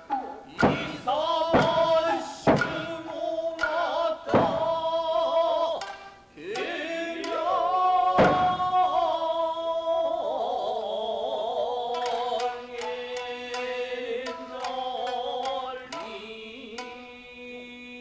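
Nagauta music playing, with shamisen and a long, wavering sung line held through the second half. About five sharp, loud strikes land in the first half.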